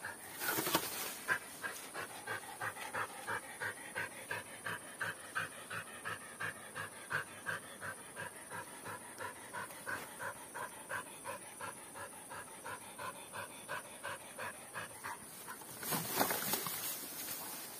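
Dog panting hard and steadily, about three breaths a second. A short burst of rustling noise comes about half a second in, and a longer one near the end.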